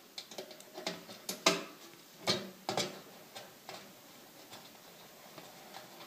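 Small irregular metal clicks and scrapes from pliers tightening a motherboard mount standoff into a PC case's steel motherboard tray. The clicks thin out about halfway through.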